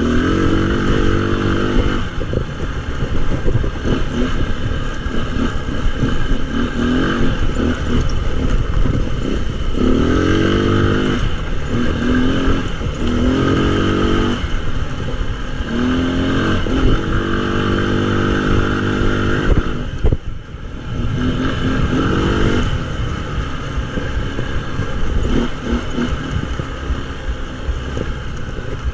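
Tao Tao 200cc ATV's single-cylinder engine revving up and easing off again and again, its pitch climbing on each burst of throttle, under heavy wind rush on the body-mounted camera. The engine drops off briefly about two-thirds of the way through.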